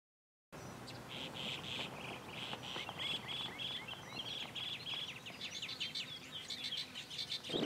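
Silence for the first half second, then small birds chirping and calling in quick runs of short, sweeping notes over a faint outdoor background.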